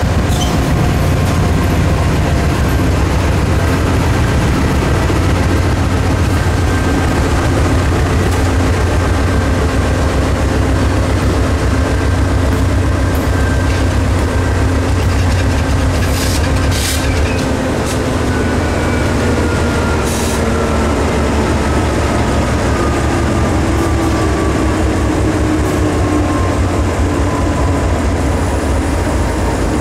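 GE C40-8 diesel locomotives' 16-cylinder engines running under load at a crawl, a deep steady rumble with a whine that slowly falls in pitch over the second half. A few short metallic clicks come from the cars about halfway through.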